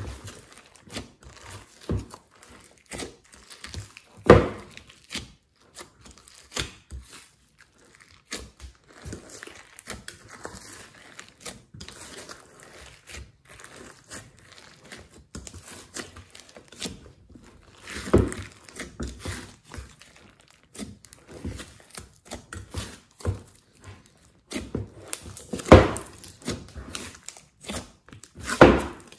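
Glossy slime being squeezed, stretched and folded by hand in a glass dish: a stream of irregular small pops and crackles, with louder squishes about four seconds in, around eighteen seconds, and twice near the end.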